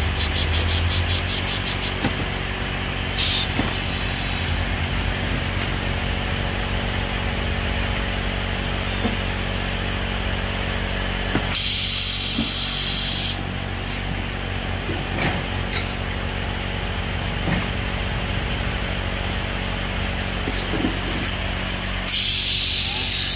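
Small Italian-made 100 V air compressor running steadily, with hisses of compressed air blown from its outlet: a short one about three seconds in, a longer one about twelve seconds in, and another near the end.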